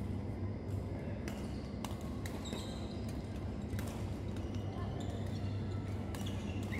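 Badminton rackets striking a shuttlecock during a rally: several sharp hits at uneven intervals over a steady low hum.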